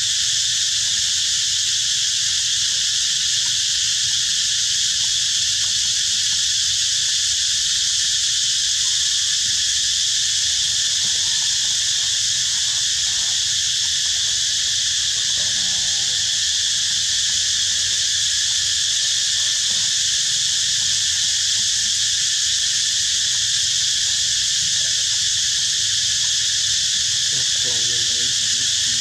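Steady chorus of insects, a dense high-pitched hiss that never lets up.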